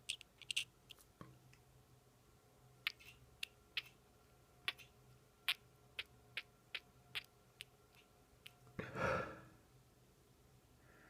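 Wet, sticky crackling in the ear during a Valsalva maneuver: a scattered run of sharp clicks, then a longer breathy rush about nine seconds in. It is a sign of suspected Eustachian tube dysfunction.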